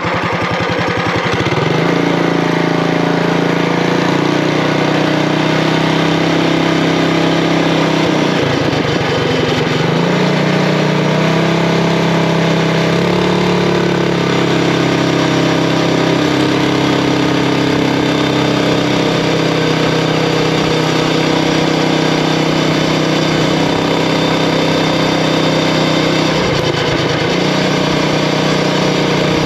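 Predator Ghost 212cc single-cylinder four-stroke engine on a mini bike, revving up under full throttle and held at high revs on a speed run. The revs drop briefly about eight seconds in and again near the end, then climb back.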